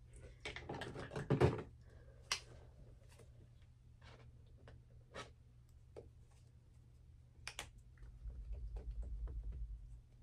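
Small clicks, taps and rattles of paint supplies being handled: a plastic paint bottle and a brush picked up and worked with, more clustered in the first second and a half. A low rumble comes in near the end, over a steady low hum.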